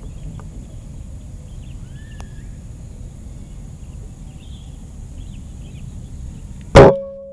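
A single shot from a moderated .177 PCP air rifle (Mouser OD 32 stainless) about seven seconds in, a sharp crack that is by far the loudest thing here and fades over about half a second. Before it there is a steady low outdoor background with a few faint bird chirps.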